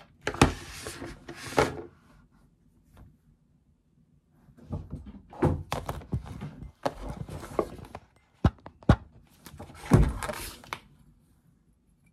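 Small hard objects, a plastic tray of nail polish bottles and nail tools, set down and handled on a desk: clusters of knocks and clatter with rustling, and two sharp single knocks a little after the middle.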